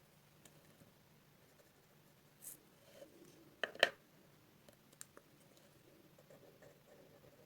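A pen drawing on paper: faint scratching strokes and light ticks, with a brief cluster of sharp clicks a little past halfway.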